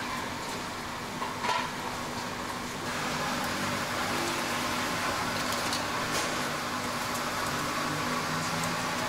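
Chive cakes deep-frying in hot oil: a steady sizzle that grows louder about three seconds in. A low hum runs underneath, and there is a short knock about one and a half seconds in.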